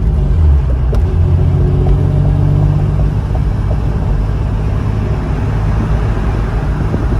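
Acura NSX V6 engine running through an aftermarket Pride V2 2.5-inch exhaust at light throttle, a steady low drone with no hard revving.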